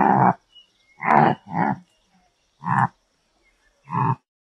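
Antelope calling: five short calls in a row, about a second apart.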